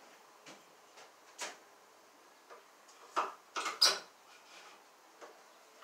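Scattered short clicks and light knocks from hand work on electrical cable and a blue plastic electrical box nailed to a wall stud, with the loudest run of four quick knocks about three to four seconds in.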